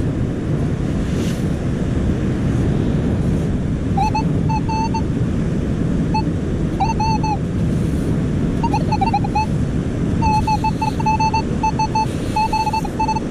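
Metal detector sounding short repeated target beeps, its pitch wavering slightly, in clusters that become almost continuous in the later part: the signal of a metal target under the sand. Under it, steady wind noise on the microphone and surf.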